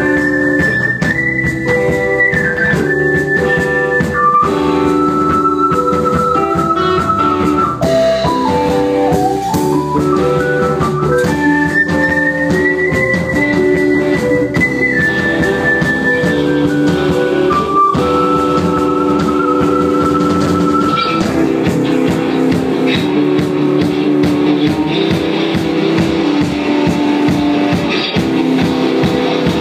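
Instrumental rock music: a lead melody holds long notes and slides between them over steady chords and drums, and the sound grows denser about two-thirds of the way through.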